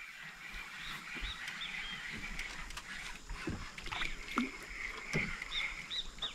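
Riverside forest ambience: a steady insect drone, with short arching bird chirps now and then and a few brief low sounds in the middle.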